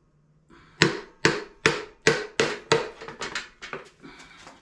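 A hammer striking a Briggs & Stratton lawn mower engine's casing again and again, about two or three blows a second, tapping the parts apart as they start to separate. The first six or so blows are heavy and the rest are lighter taps.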